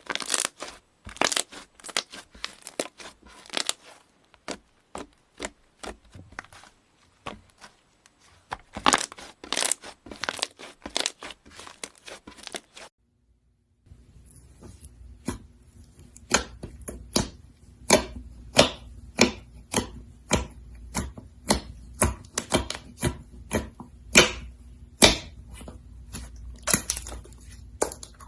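Slime being squished and stretched by hand, making rapid crackling clicks and pops. The sound cuts off about 13 seconds in, and after a short silence the clicking resumes over a low steady hum.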